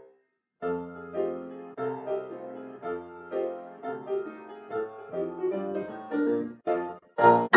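Grand piano playing a ragtime piece: after a short silence, a steady run of notes and chords, then a brief break and a much louder passage near the end.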